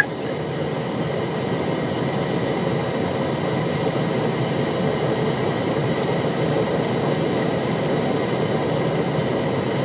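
Steady rush of airflow and turbofan engine noise inside a CRJ700 jet's cockpit during the landing.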